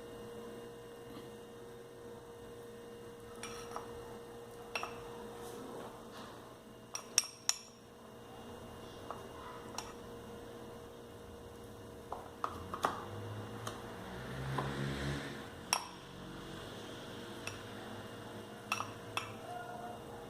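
Spoon clinking and scraping against a bowl and cup as damp corn-flake couscous mixture is scooped into the cup, in scattered taps with a few sharper clinks, over a steady faint hum.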